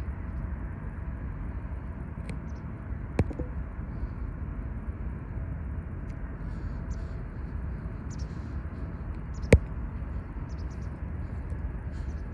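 Harbour ambience: a steady low rumble, with a small sharp click about three seconds in and a louder one past nine seconds.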